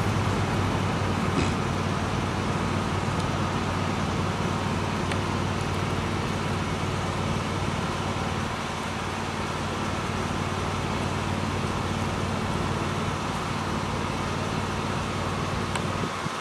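Steady background rumble and hiss with a constant low hum. The hum drops away near the end.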